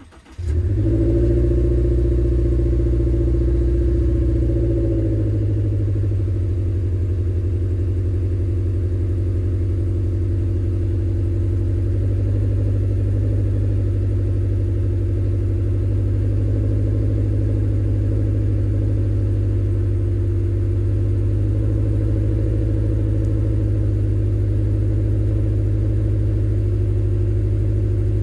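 Subaru Levorg's CB18 1.8-litre turbocharged flat-four starting about half a second in, then idling loudly through an STI Performance Muffler with the low, uneven boxer burble ("doro-doro") of its unequal-length exhaust. The idle note shifts about five seconds in and then holds steady.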